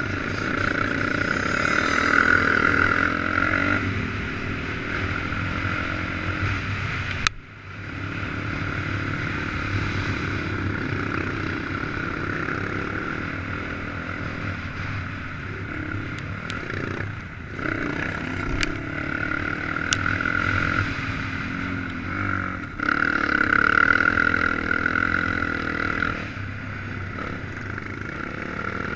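Sport ATV engine running on a dirt track, the throttle opening and easing off in swells, heard from a helmet-mounted camera. A sharp knock about seven seconds in, with the engine sound dropping away for a moment.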